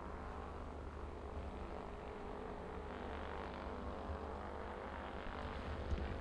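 Distant jet airliner engines: a steady hum and rumble with a faint whine, growing a little louder about halfway through.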